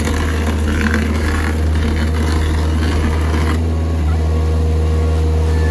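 A heavy machine's diesel engine running steadily with a deep hum, over a rough, irregular grinding noise that stops about three and a half seconds in.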